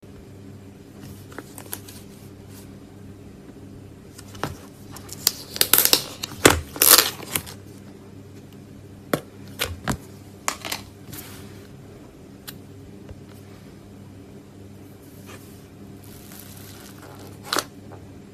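Cloud slime being stretched and pulled apart, giving crisp crackling and tearing sounds that come in bunches, with the busiest stretch about a third of the way in, over a steady low electrical hum.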